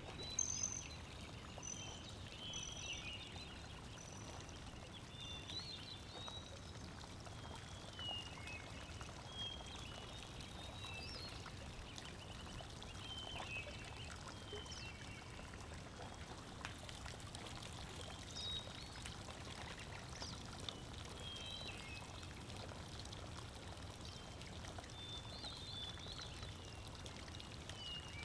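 Steady rush and splash of water as great white pelicans flap and plunge their bills while fishing, with short high bird chirps on and off, including a falling run of notes near the start.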